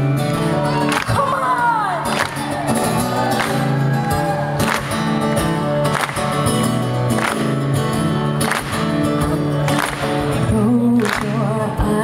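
Live band playing the instrumental opening of a pop-rock song over a festival PA: strummed acoustic guitar, bass and drums keeping a steady beat, heard from within the audience.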